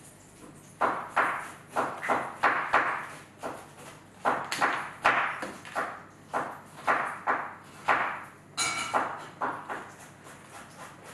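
Knife chopping on a cutting board, cutting meat into thin slices: a steady run of sharp knocks, about two a second, starting about a second in and stopping near the end.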